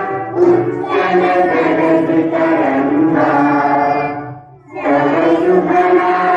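A large group of young schoolchildren singing a prayer together in unison, with one short pause for breath about four and a half seconds in.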